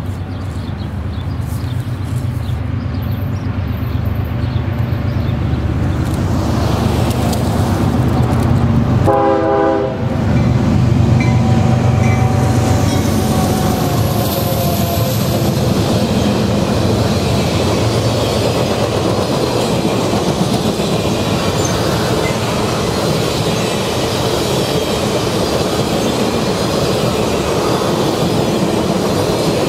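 A diesel locomotive approaches with its engine running, louder as it nears, and gives a short horn blast about nine seconds in. A long train of passenger cars then rolls steadily past, wheels clacking over the rail joints.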